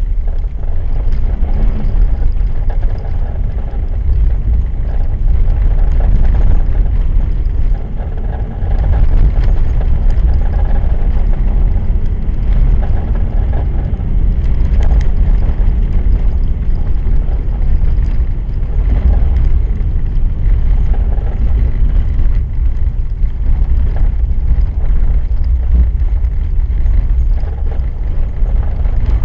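Car driving on a frozen lake's ice, a loud steady low rumble with scattered faint clicks and knocks. The car is throwing an abnormal noise from the left rear wheel area.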